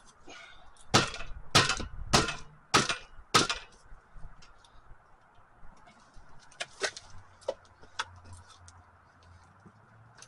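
Five sharp knocks about 0.6 s apart, starting about a second in: blows struck under the e-bike's rear wheel to free its axle from the frame dropouts. Some lighter clicks and knocks follow later.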